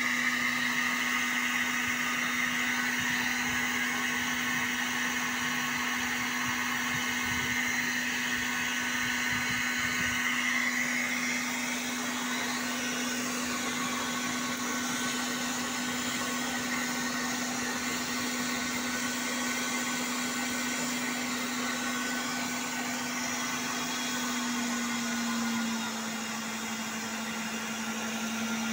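Electric blower fan on a waste-oil stove running steadily, a rushing air noise with a steady hum. The hum drops a little in pitch and loudness a few seconds before the end.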